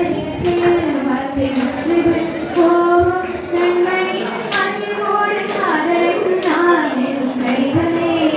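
A young voice singing a slow melody in long held notes, with hands clapping a steady beat about twice a second.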